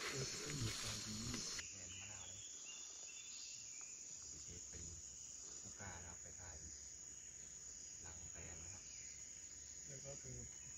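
Steady high-pitched trilling of forest insects, a continuous insect chorus. There is louder rustling noise for the first second or so.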